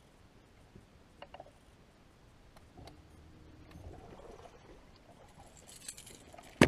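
Faint clicking of a fishing reel being wound while a hooked fish is played, with one sharp knock right at the end.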